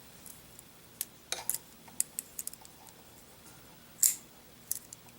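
Scattered light metallic clicks of a Benchmade 51 Morpho balisong being handled and worked, its handles and latch ticking, with the sharpest click about four seconds in.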